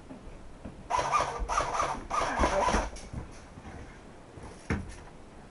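Airsoft electric rifle firing three short full-auto bursts of about half a second each, starting about a second in, followed by a single sharp click near the end.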